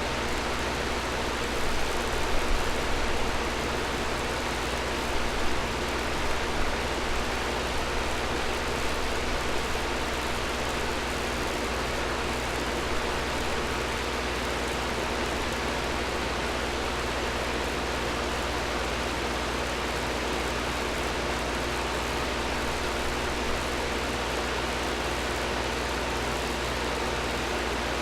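Air conditioner running: a steady rush of air over a low hum, with a few faint steady tones, briefly louder a few times between about two and ten seconds in.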